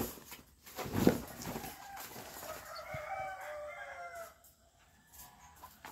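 A sharp clank about a second in, then a drawn-out animal call lasting nearly two seconds that dips slightly in pitch at the end.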